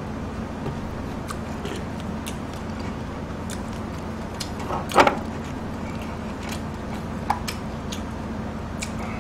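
Steady low hum and hiss with scattered small clicks and knocks as a bottle and food are handled on a table; one louder knock about five seconds in.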